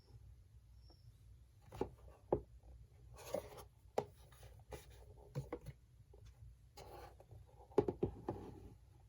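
Tools and a tool tray being handled: scattered light knocks, clicks and rubbing, with a louder clatter about eight seconds in.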